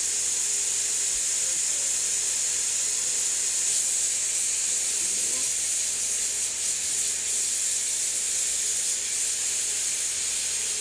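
Glassworking torch flame hissing steadily while the glass of a picture tube is worked.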